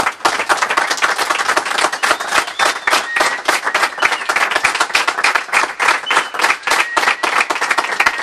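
Live audience applauding, a dense, steady run of many hands clapping.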